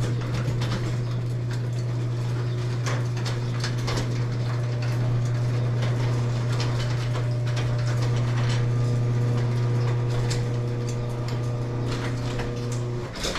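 Chain-drive garage door opener raising a sectional overhead door: a steady motor hum with many clicks and rattles from the chain and door. It stops near the end.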